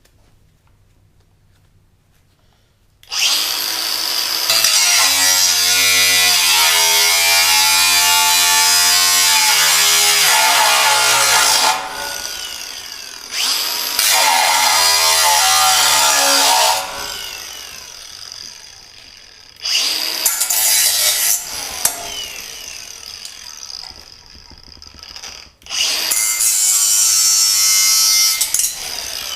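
Milwaukee cordless angle grinder with a cutting wheel cutting through metal, starting about three seconds in and running in four bursts, the first and longest about eight seconds, with short pauses between.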